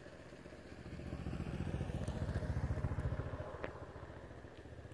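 A passing motor vehicle's engine: a low, pulsing rumble that swells about a second in and fades again, with one sharp click near the end.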